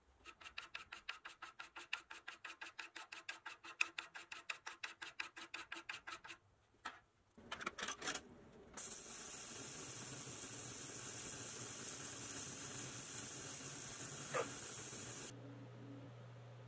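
A rapid even run of clicks, about seven a second, for some six seconds, then a few scattered clicks. After that comes a loud, steady hiss of compressed air from a shop air tool for about six seconds, which cuts off suddenly.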